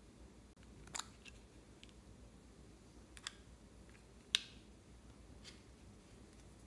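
Slime being handled: a few sparse, sharp clicks and pops, the loudest a little after four seconds in.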